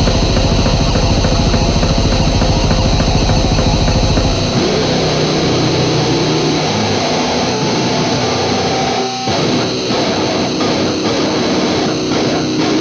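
Loud, distorted rock song. It opens with fast, even drumming, and about four and a half seconds in it changes to distorted guitar riffing, with a brief drop near nine seconds.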